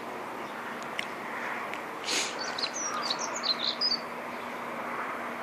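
Small birds chirping, with a cluster of short high chirps about halfway through, over steady outdoor background noise.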